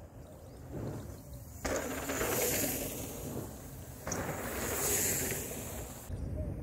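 Mountain bike rolling along a packed-dirt trail: a rushing noise of tyres on dirt that swells twice as the rider comes off the ramp and passes close by.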